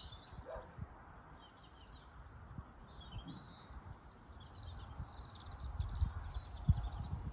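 Small songbirds chirping and warbling in a quick, high-pitched run that is busiest about four to five seconds in, over a low rumble on the microphone.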